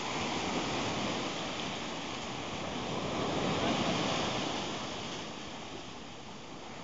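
Sea surf: small waves breaking and washing up a sandy beach, swelling a little past halfway and easing off near the end.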